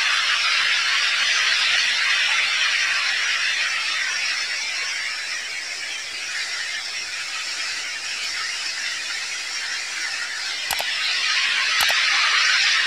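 Steady rushing water echoing in a concrete drain tunnel, a hissing wash of sound that eases off a little midway and swells again. Near the end, two sharp mouse clicks.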